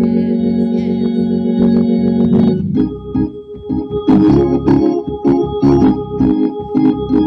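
Organ playing: a held chord for about two and a half seconds, then short rhythmic chords with brief gaps between them, leading into a gospel praise song.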